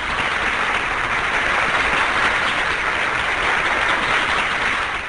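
A large crowd applauding: dense, steady clapping that fades out near the end.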